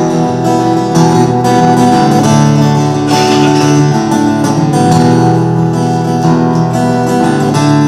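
Solo acoustic guitar strummed steadily in an instrumental break of a folk song, the chords changing every second or two.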